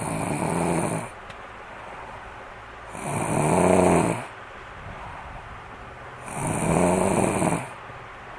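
Snoring: three snores, each about a second long, coming about every three seconds with quieter breathing between them.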